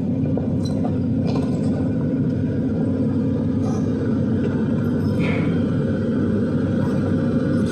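Excavator's diesel engine running steadily, with a few light knocks.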